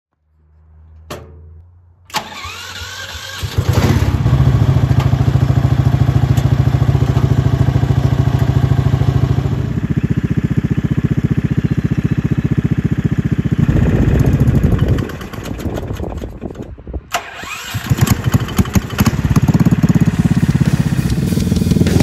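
Predator 459cc single-cylinder four-stroke engine on a remote-controlled crosskart starting about two seconds in and idling steadily, then revving unevenly under remote throttle from about 14 seconds on.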